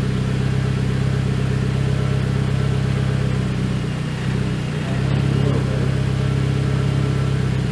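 Mitsubishi Lancer Evolution X's turbocharged 2.0-litre four-cylinder engine idling steadily.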